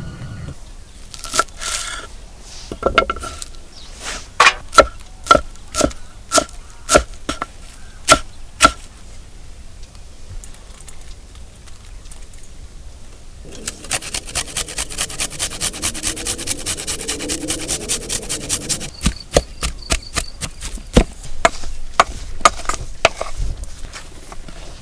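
Knife chopping on a wooden board. About a dozen single strokes with a slight metallic ring come first, then a few seconds of fast, even chopping, then more scattered strokes near the end.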